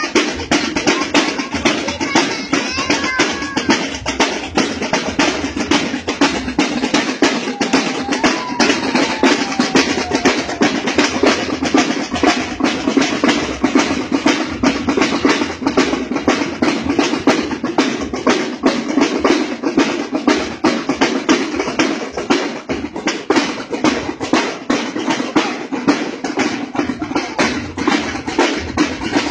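Marching band drum line playing snare and bass drums in a steady, fast march beat.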